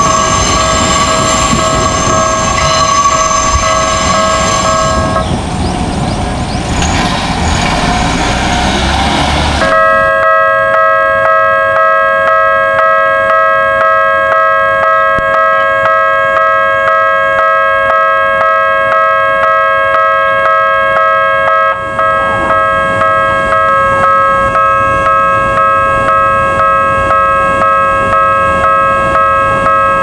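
Japanese railway level crossing's electronic warning bell ringing in an even, repeating rhythm of about one and a half strokes a second, with a second tone joining about two-thirds of the way in. In the opening seconds a different crossing's bell rings over the rumble of a passing electric train, and it breaks off abruptly about a third of the way in.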